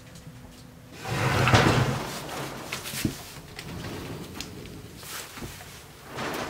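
Old wooden sliding door with frosted glass panes rolling open along its track: a rumbling scrape lasting about a second. Scattered light clicks and taps follow.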